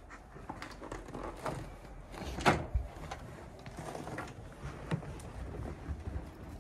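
A glass storm door opened by its handle, with clicks and knocks from the latch and frame, then steps out onto a deck. The sharpest knock comes about two and a half seconds in.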